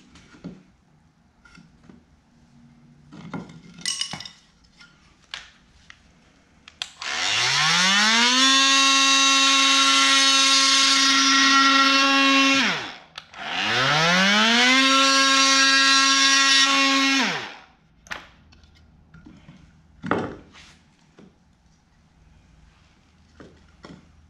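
Cordless oscillating multi-tool cutting a piece of door jamb stock to size, in two runs. Each run starts with a rising whine as the tool spins up, holds a steady loud buzz, then winds down. The first run lasts about five seconds, the second about four. Light knocks of handling come before and after.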